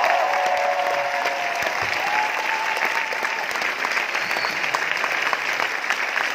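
A large theatre audience applauding steadily, a dense wash of many hands clapping. The last held notes of music fade out under the clapping in the first few seconds.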